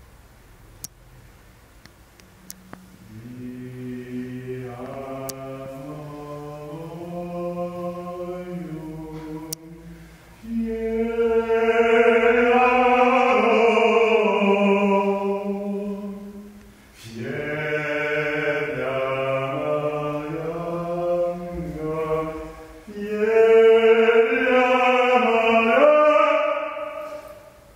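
A man singing unaccompanied in a slow chant of long held notes that glide between pitches. He starts softly a few seconds in and becomes much louder from about ten seconds in, with short breaks between phrases.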